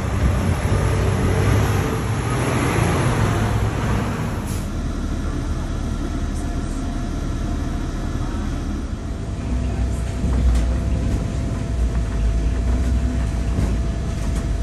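Inside a moving city bus: steady low engine and road rumble, with a faint steady whine. For the first four seconds or so there is a brighter rushing noise that gives way abruptly to the cabin rumble.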